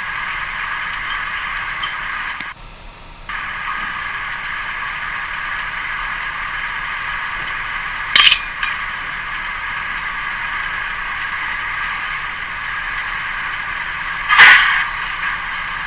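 Armstrong 33-W cable-tool drilling rig running with a steady mechanical clatter. The sound drops out briefly about two and a half seconds in, and two sharp clanks come about eight and fourteen and a half seconds in, the second the loudest.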